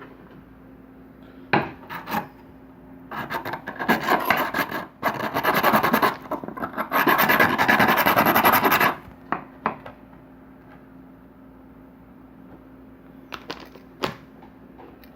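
Terminal end of an 18650 lithium-ion cell being roughed up with an abrasive before tinning: a couple of short scrapes, then several seconds of steady rasping in a few long passes. A few light clicks near the end.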